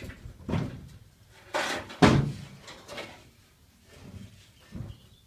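A removed Bedford truck grille bumping and knocking against the panelled wall of the lorry's box body as it is tied up with string. There are about half a dozen separate knocks, the loudest a sharp bang about two seconds in.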